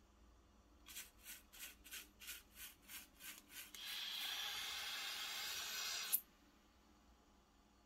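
Air from a balloon escaping through aquarium tubing past a motor-driven LEGO pinch valve: about nine short puffs, roughly three a second, then a steady hiss for about two seconds that ends in a sharp click.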